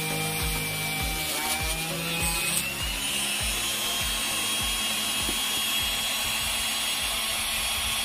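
Homemade drill built on a 775 DC motor, running with a steady high whine and a grinding rub as it works. The whine rises in pitch about two and a half seconds in.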